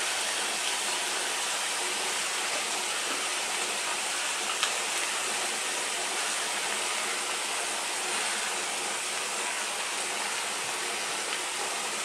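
Chicken and vegetables sizzling steadily in a frying pan as teriyaki sauce is drizzled over them, with one faint click about four and a half seconds in.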